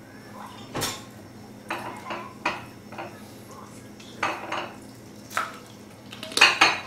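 Eating cooked pig feet by hand over a plate: a handful of short, sharp clicks and clatters of bone and plate on a granite counter, spaced irregularly, with the loudest double knock near the end.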